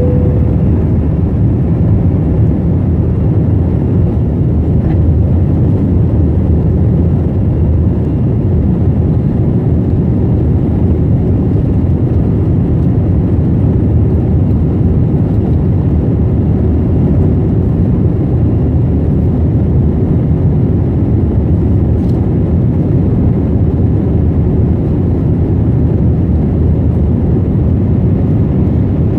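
Jet airliner's engines and rushing air heard from inside the cabin during the climb after takeoff: a loud, steady low rumble.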